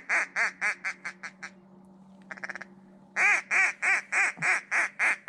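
Mallard-style duck call blown in descending runs of loud quacks, each quack shorter, quieter and quicker than the last, the cadence of a greeting call. A brief rapid chatter comes about two seconds in, and a second run starts just after three seconds.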